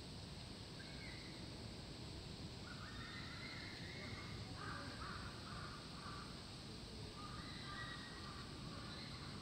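A crow cawing, one short call near the start and then several runs of caws through the rest, over a faint steady background hum.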